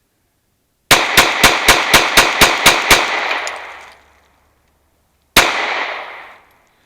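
Glock 43X 9mm pistol fired rapidly: nine shots at about four a second, then a tenth shot after a pause of about two and a half seconds, each string followed by a ringing echo that dies away.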